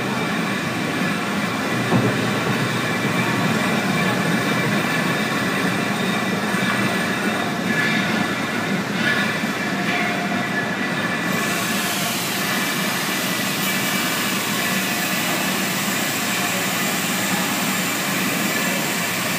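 Loud, steady machinery din of a railway locomotive and carriage repair workshop. A little over halfway through, a harsher hiss comes in and holds: a handheld grinder working steel under a passenger carriage.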